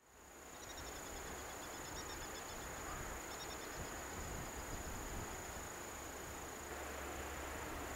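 Insects chirping in rapid, evenly pulsed high trills in two spells, over a steady high-pitched whine and a low, even outdoor rumble.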